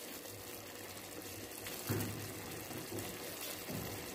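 A pot of drumstick curry thinned with tamarind water simmering on the stove: a steady, low watery hiss, with one soft knock about two seconds in.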